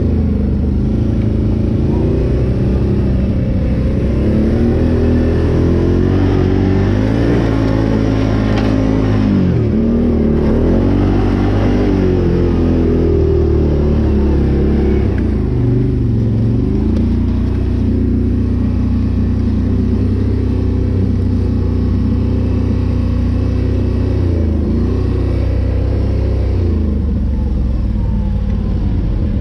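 Can-Am Renegade 800 ATV's V-twin engine running as it is ridden, its pitch rising and falling with the throttle. Engine speed dips sharply twice, once about a third of the way through and once just past halfway.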